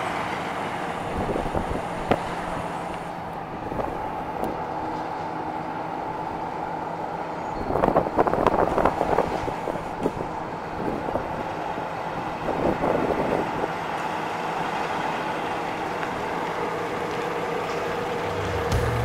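1930 Graham-Paige's 207-cubic-inch inline six-cylinder engine running as the car drives past. The sound is steady, with louder, rougher stretches about eight seconds in and again around thirteen seconds.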